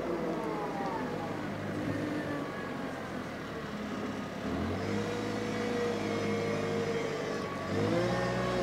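Motor vehicle engine running and revving, its pitch rising about halfway through and again near the end.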